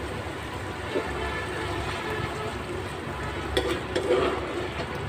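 Oil with ginger, garlic and onion paste sizzling in a cooking pan, with a few sharp clicks of a utensil against the pan from about three and a half seconds in.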